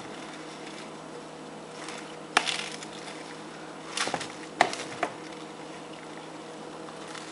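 A utensil knocking against a dish as ingredients are stirred together, with four short knocks between about two and five seconds in, over a steady hum.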